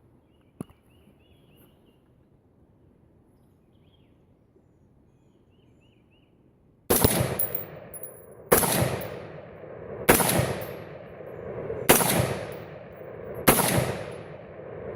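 AR-15 rifle firing five shots of .223 Remington 50-grain Z-Max loads, evenly spaced about a second and a half apart, each shot followed by a long echo.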